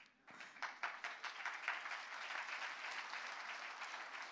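Large audience applauding, a dense steady clapping that starts just after the punchline.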